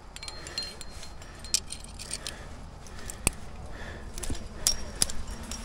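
Climbing hardware clinking and jangling: carabiners and protection racked on a climber's harness knocking together as the climber handles the rope and a carabiner at a placement. A string of sharp metallic clicks with short ringing, and one duller knock about three seconds in.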